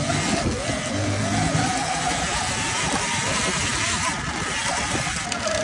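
Dirt bike engine running at trail speed, its pitch rising and falling with the throttle, under a steady hiss of noise.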